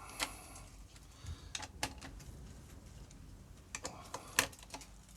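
Scattered light metallic clicks and taps of hand tools and bolts being handled, some in quick pairs, over a low steady background hum.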